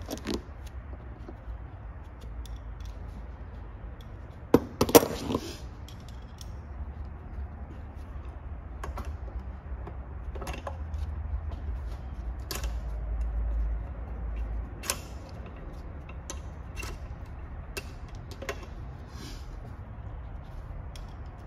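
Small metal clicks and clinks as the steel parts of a retrieval tool and its guard body are handled and fitted by hand, with a louder clatter about five seconds in, over a low steady hum.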